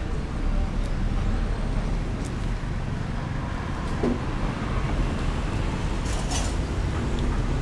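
Steady low background rumble, with a few faint light clinks of bowls and utensils.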